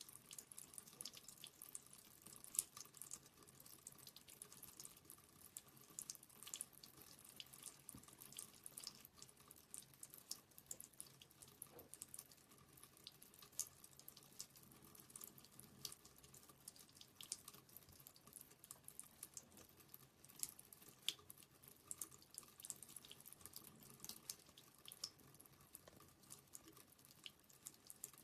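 Faint thin stream of tap water trickling into a bathroom sink, with quick irregular wet ticks as a Siamese cat laps at the stream.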